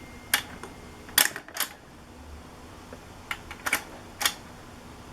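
About six sharp plastic-and-metal clicks and knocks at uneven intervals, from hands working the BSR record changer's controls to get the turntable going. A faint steady hum sits underneath.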